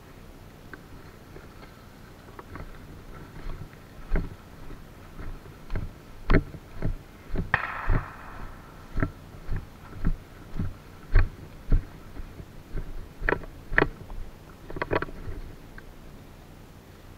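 Mortar fire, heard as a run of dull thumps, about two a second at their most regular, fading out near the end.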